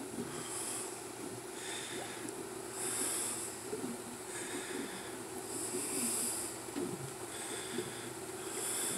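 Somfy tubular motors humming steadily as a wall of motorized roll-down solar screens lowers, with a soft hiss that comes and goes every second or two.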